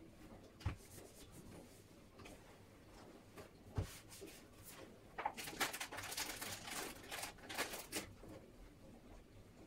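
Kitchen cleaning at a sink with a cloth: two sharp knocks, then about three seconds of irregular crackling, rubbing noise from about five seconds in.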